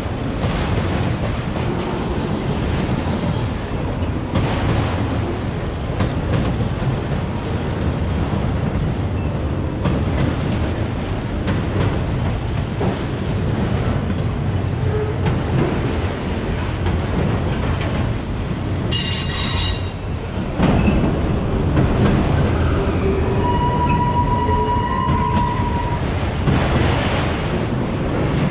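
Empty auto-rack freight cars of a long train rolling past, a steady rumble and clatter of wheels on rail. About two-thirds of the way in there is a brief high-pitched squeal, and a few seconds later a longer, thinner one.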